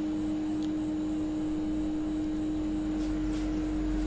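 Steady machine hum with one constant low tone, and a couple of faint ticks.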